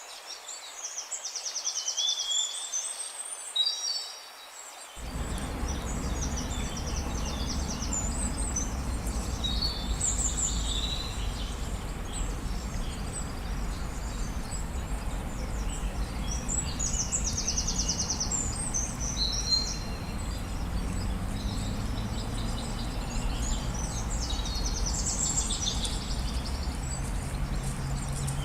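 Several songbirds singing and calling, with high chirps and fast trills repeating throughout. About five seconds in, a steady low rumbling noise comes in underneath the birdsong and carries on.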